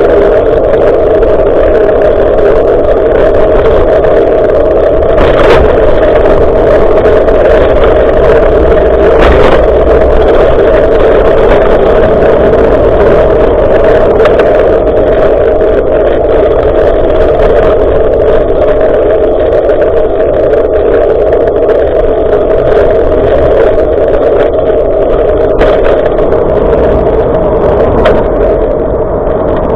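Steady, loud wind and road rumble from a moving bicycle, picked up by an action camera on the ride. A few sharp knocks come through, the clearest about 5 and 9 seconds in and again near the end.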